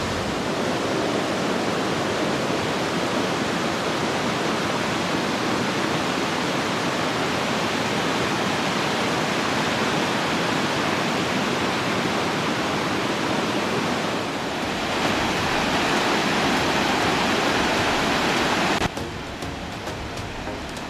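Rushing water of Tails Creek tumbling over rock cascades: a steady, loud hiss. It cuts off abruptly near the end, giving way to a much quieter passage.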